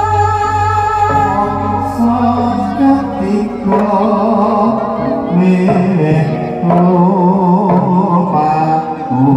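Javanese gamelan music for a tayub dance, with a singer's wavering held melody over steady low instrumental notes that step from pitch to pitch.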